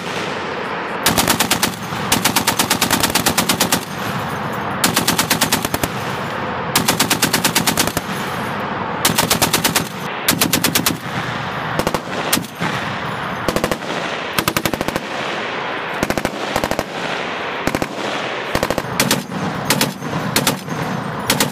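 M2 Browning .50 calibre heavy machine guns firing rapid bursts of about one to two seconds each, one after another. In the second half the bursts get shorter, with some single shots.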